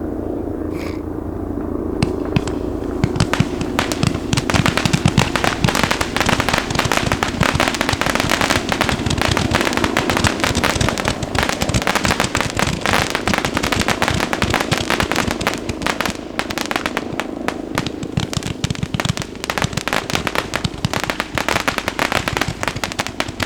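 432-shot Magnus 'Sky Hunters' firework cake firing. A few separate pops in the first couple of seconds give way to a dense, continuous stream of rapid shots that runs on.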